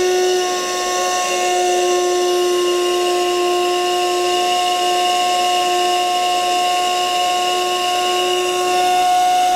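Cuisinart coffee maker giving off a steady, loud whine with a hiss under it, holding the same pitch throughout.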